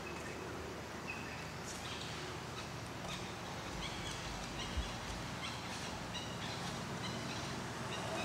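Short, high chirping calls repeated many times, growing more frequent after the first few seconds, over a steady background hiss, with one brief low thump about halfway through.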